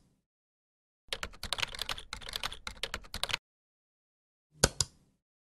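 Computer-keyboard typing: a quick run of key clicks lasting a little over two seconds. About a second later come two sharp clicks in quick succession.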